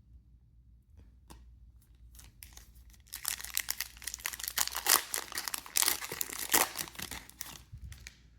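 Trading card pack wrapper being torn open and crinkled, with a few faint handling clicks before a dense run of crackling about three seconds in.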